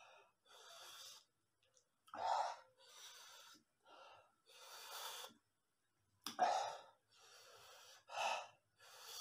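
A man breathing hard through an open mouth to cool a chilli burn after eating very spicy noodles: short, noisy breaths in and out about once a second, with three louder gasps.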